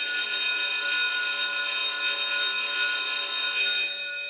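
Electric bell ringing continuously with a metallic shimmer, then stopping about four seconds in, its tone ringing on and fading.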